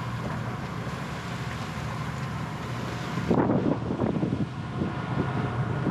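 Sailboat's inboard engine running steadily under way, with wind buffeting the microphone and water rushing past from about three seconds in.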